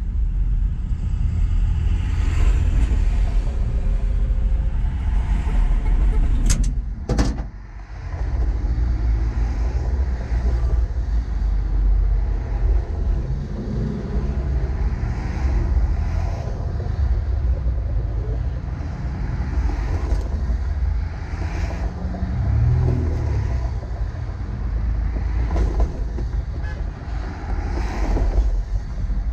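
Steady engine and road rumble of a vehicle cruising on a highway, heard from a camera on its hood, with wind noise. Two sharp knocks come about six and a half and seven seconds in.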